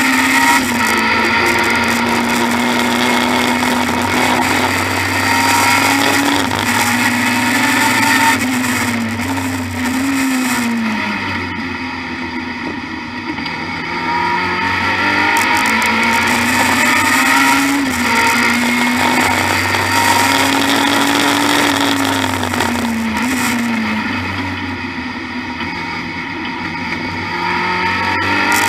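BMW E30 M3 Group A racing car's four-cylinder engine heard from inside the cabin at race pace. Its note climbs in pitch through the gears and drops with each shift. Twice it falls away and goes quieter as the driver eases off, then pulls hard again.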